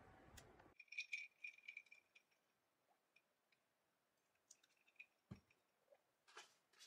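Faint clinks and taps of tableware: a metal spoon against a ceramic bowl and a drinking glass being handled, with a brief high ring on the first clinks and a soft knock about five seconds in.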